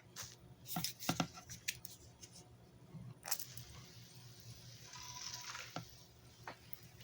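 Several sharp clicks and knocks of handling, then a hiss of about two and a half seconds as water is added to dampen the potting soil and forest floor bedding.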